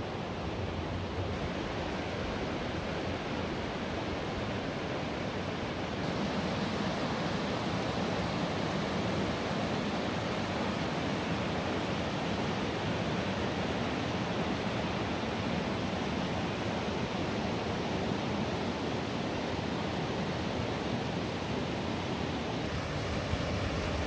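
Rocky mountain stream rushing over stones: a steady wash of water noise that grows a little louder about six seconds in.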